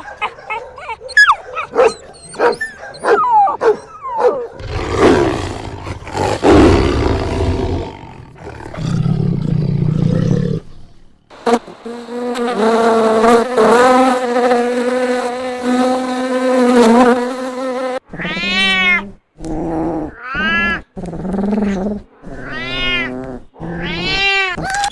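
A run of different animal sounds, one after another. First come quick yips and clicks, then a rough roar and a low buzz, then a long steady droning call lasting several seconds. It ends with four separate calls, each rising and then falling in pitch.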